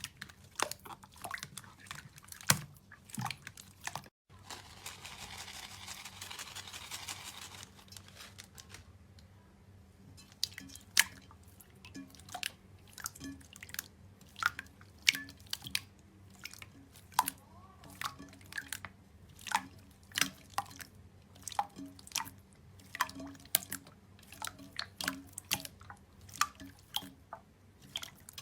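Hands squeezing and poking slime, making sharp wet clicks and pops at an irregular pace, about two a second in the second half. About four seconds in, a steady hiss runs for some three seconds.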